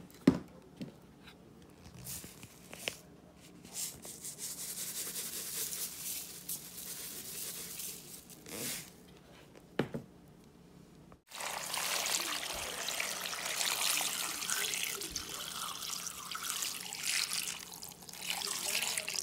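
Water running from a faucet, softer at first, with a couple of knocks, then louder and steady after a sudden break about eleven seconds in.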